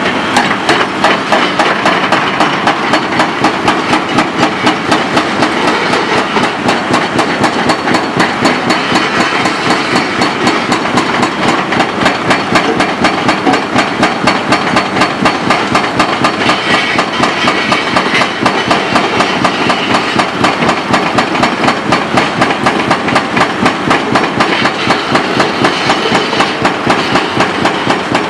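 Dehaco IBEX 4000GS hydraulic hammer on a Komatsu PC490-10 excavator pounding concrete in a fast, steady rhythm of several blows a second, without a break. The excavator's engine runs under load beneath the blows.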